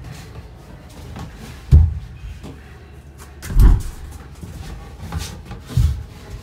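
Three dull thumps, about two seconds apart, with lighter scuffs and rustling between: a person crawling through an artificial cave tunnel, knees and hands knocking on its floor.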